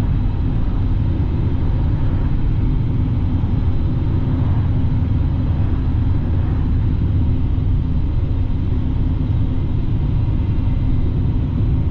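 Steady low rumble inside a car's cabin: engine and road noise while driving.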